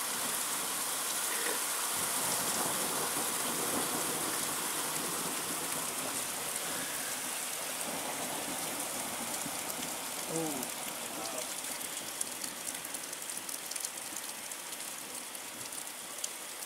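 Heavy rain mixed with hailstones falling in a thunderstorm: a steady, dense hiss of drops that eases slightly toward the end.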